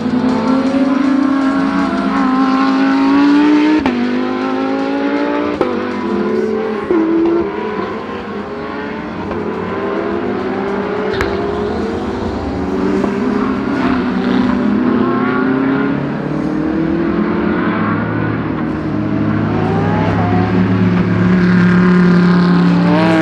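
Several GT3 race cars accelerating past, their engine notes overlapping and rising through the gears, with sudden upshifts that drop the pitch about four and five and a half seconds in.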